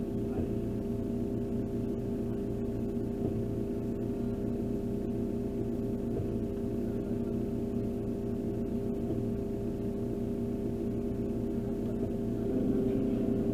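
JCB 535 telehandler's diesel engine idling steadily while the machine holds a silage bale still, becoming a little louder near the end.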